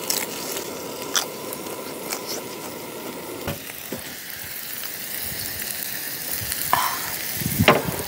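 Pork belly, shrimp and mushrooms sizzling on a round grill pan over a portable butane stove, a steady crackle. A few light clicks and knocks come through, the loudest near the end.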